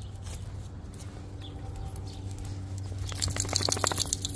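A brief burst of rapid crackling and crunching, as of dry leaves and grass being stirred underfoot, about three seconds in, over a steady low hum.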